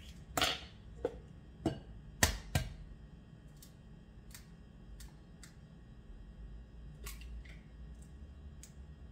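Eggshells knocking and clicking against a stoneware mixing bowl as eggs are cracked and separated, yolks from whites. Several sharp knocks come in the first three seconds, followed by lighter, scattered clicks.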